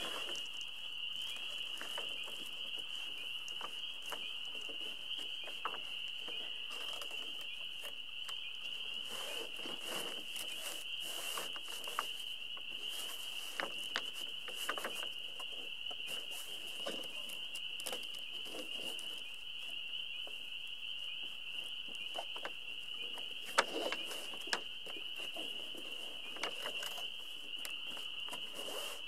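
Monofilm windsurf sail being handled and smoothed by hand on a wooden floor: scattered crinkles, rustles and taps, one sharper click a little before the end, over a steady high-pitched hiss.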